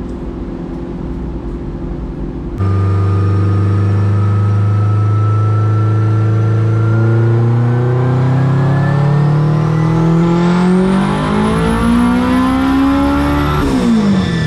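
Honda Del Sol engine idling, then suddenly loud and climbing steadily in pitch for about eleven seconds in a full-throttle dyno pull, with a faint high whine rising along with it; near the end the revs drop sharply as the throttle is let off.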